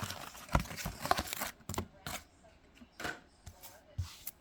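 Trading cards and their pack wrapper being handled: a string of short rustles and clicks as cards are pulled out and shifted in the hands.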